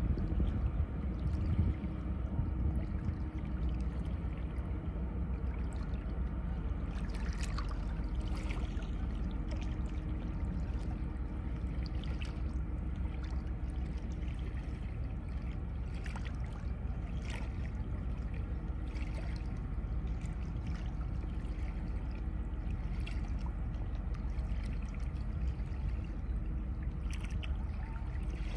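Small waves lapping and splashing irregularly at the waterline over a steady low rumble.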